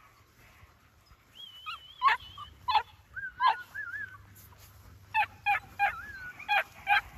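Huntaway puppies yelping in short, high yaps: a few single yelps about two seconds in, then a quick run of them, about three a second, near the end. Between the first yelps come high, wavering whines.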